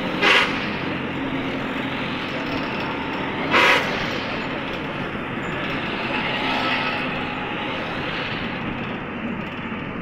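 Steady road and engine noise of a moving vehicle, heard from inside it, with two short, sharp bursts of noise about three seconds apart.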